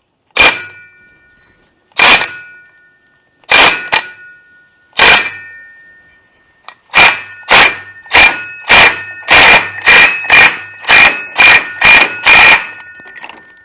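Hammer striking steel about sixteen times, each blow sharp with a ringing metallic tone. The blows come a second or more apart at first, then quicker, about two a second, in the second half. It is an attempt to shock loose a stuck bolt that is not giving.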